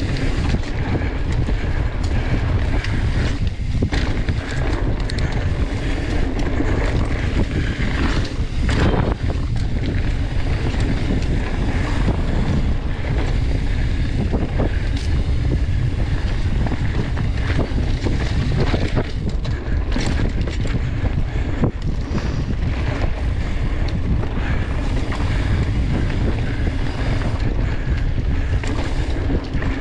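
Wind rushing over the microphone and tyres rolling on a dirt forest trail as a mountain bike is ridden along it, with frequent short knocks and rattles from the bike over bumps.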